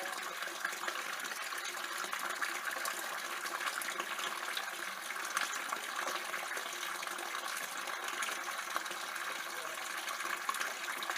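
Steady running water splashing without a break, the sound of water flowing into the outdoor fish pond.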